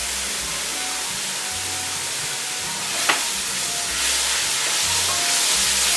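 Diced onions sizzling in oil in a cooking pot, with a sharp knock of a utensil against the pot about three seconds in. The sizzle grows louder from about four seconds in.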